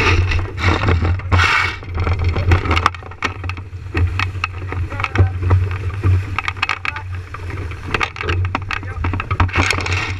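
Wind buffeting the boat-mounted GoPro's microphone as a 29er skiff sails fast, with water spray hissing along the hull and many sharp, irregular splashes and knocks from the chop.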